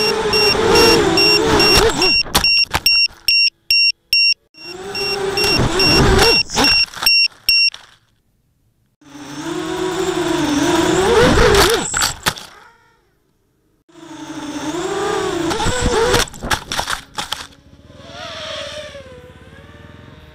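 A 250-size FPV racing quadcopter's brushless motors (RCX 1806 2400KV) and HQProp 5040 propellers whining, the pitch rising and falling with the throttle, in several stretches that cut off abruptly. A rapid high-pitched beeping runs over it for the first few seconds.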